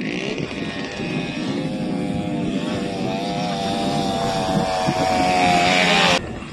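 ATV (quad bike) engine revving under load on a sandy uphill climb. The pitch wavers and the sound grows louder, then cuts off abruptly near the end.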